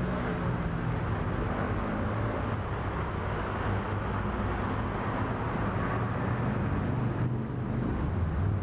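Steady city street traffic noise: engines and road noise of passing vehicles, a constant din.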